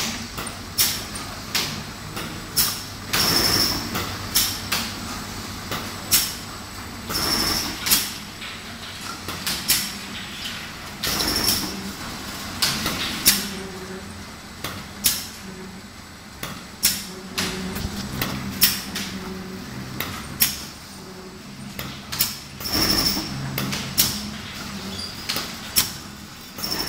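Automatic container filling and capping machine running: a steady motor hum with irregular sharp clacks and knocks, some close together and some a few seconds apart, as the mechanism works.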